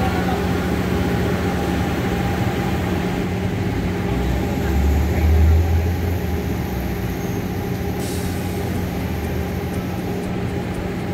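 Street traffic with a heavy vehicle's engine running steadily close by, giving a constant low hum; the engine rumble swells briefly about four to six seconds in.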